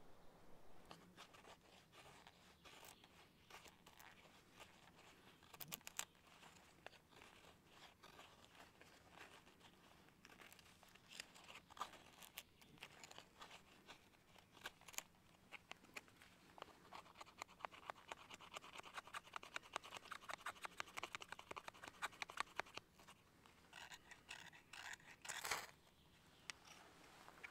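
Faint, quick scrapes and clicks of a knife blade shaving thin curls off a dry stick. Near the end comes one loud harsh scrape of a ferro rod being struck, throwing sparks that light the shavings.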